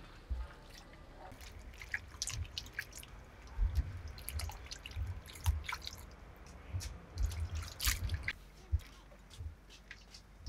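Hands washing vegetables in a stainless steel bowl of water: irregular splashes and drips as pieces are swished and lifted out, with occasional low knocks against the bowl.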